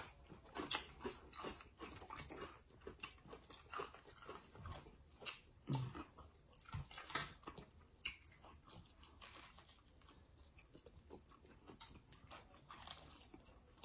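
Faint eating sounds from fried whole catfish being eaten by hand: irregular small bites, crunches and chewing clicks.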